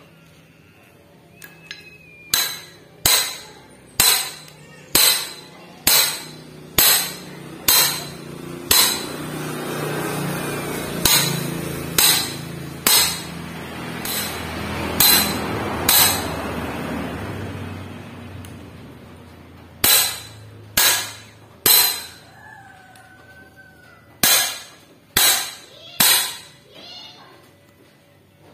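Sharp metal-on-metal taps, about one a second in runs with short pauses, from steel tools striking the rocker-arm assembly of a Suzuki Carry Futura cylinder head as it is put together. In the middle a broad rushing noise swells and fades under the taps.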